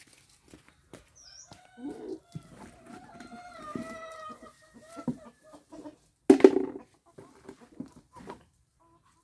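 Free-range chickens clucking and a rooster crowing, with one long drawn-out crow from about two seconds in. Scattered small clicks, and a short loud burst a little past the middle.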